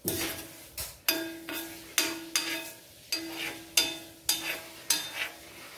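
A steel spoon stirring henna leaves in hot coconut oil in an iron kadai, knocking against the pot about two to three times a second, each knock ringing briefly. The leaves are frying crisp and starting to crumble, past the foaming and crackling stage.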